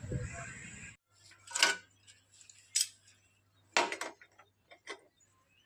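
Several sharp metallic clinks, roughly a second apart, of steel tools and parts knocking together during work on a motorcycle's steering-head bearings. A fading background rumble cuts off abruptly about a second in.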